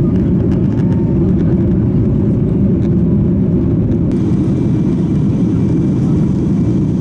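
Airliner cabin noise at cruise: the steady low rumble and rush of the jet engines and airflow, unchanging throughout.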